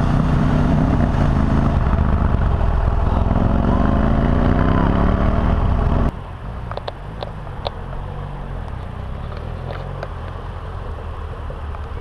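Adventure motorcycle engine running hard and revving up in pitch as it rides through a shallow river. About halfway through, the sound cuts off suddenly to a quieter, more distant engine with a few sharp clicks.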